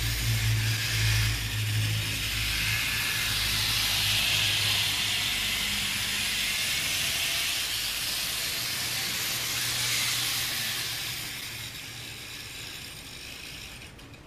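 N-gauge TOMIX KiHa 58 model diesel railcar running along its track: a steady, whirring hiss of the small motor and wheels, with a low hum under it at first. It runs fast, over scale speed, and fades over the last few seconds.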